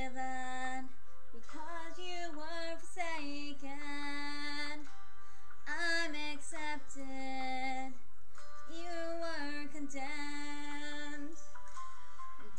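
A female voice singing a slow song in long held notes with vibrato, phrase after phrase with short breaths between.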